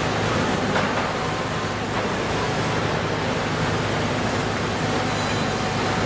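Concrete mixer truck's diesel engine running steadily: a constant low hum under an even wash of mechanical noise.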